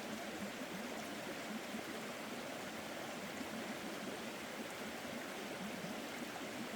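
Small stream babbling and trickling steadily over rocks.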